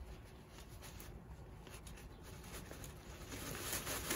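Faint light clicks and scraping of pliers working at the thin metal shaft of a plastic umbrella, with rustling of the plastic canopy, getting a little louder near the end.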